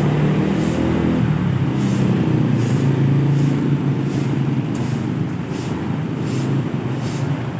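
Tour bus on a Mercedes-Benz OH 1836 chassis passing close by, its diesel engine pulling up the climbing road with a steady drone that eases a little after about five seconds.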